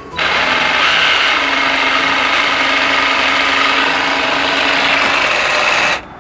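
Sawzall reciprocating saw running steadily as it cuts through the metal of a 55-gallon drum, starting just after the beginning and cutting off suddenly near the end. The saw is overheating and smoking from the work.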